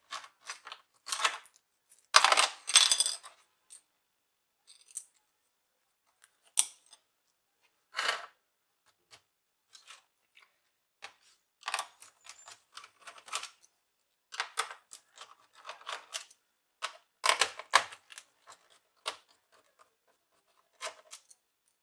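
Hands working on plastic laptop casing parts: scattered clicks and taps of plastic, with a longer scratchy stretch about two seconds in that is the loudest part.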